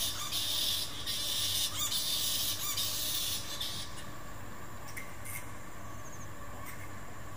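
A group of roosting bats chattering: dense high-pitched squeaking that stops abruptly about halfway through, leaving a few scattered short squeaks.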